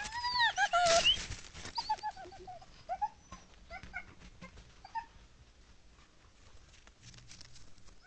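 Coyotes calling: an arching, wavering howl, followed by a run of short high yips that dies away about five seconds in.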